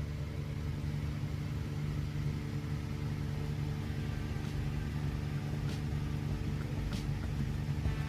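A steady low mechanical hum, like an engine or motor running, holding one unchanging pitch, with a few faint clicks near the end.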